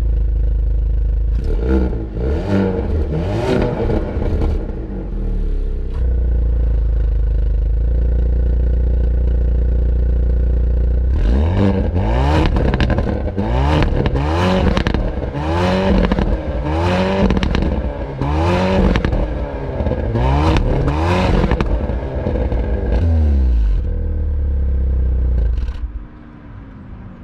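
2021 Hyundai Veloster N's turbocharged 2.0-litre four-cylinder heard loud through its exhaust, idling and revved in a few blips about a second and a half in, then in a string of about six quick blips from about eleven seconds in. Each blip comes with sharp cracks from the exhaust as the revs rise and fall. The sound drops away a second or so before the end.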